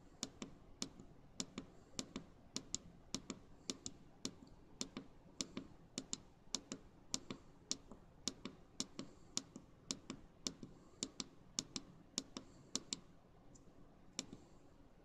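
Small tactile push-button switch clicked repeatedly, two or three sharp clicks a second, often in close press-and-release pairs, stepping the hour setting of a DS1307 real-time clock.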